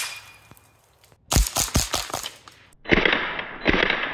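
Suppressed .22 LR MP5-style rifle firing at steel targets. A struck steel plate rings out and fades, then comes a quick string of four or five suppressed shots, and after a short pause another run of rapid shots.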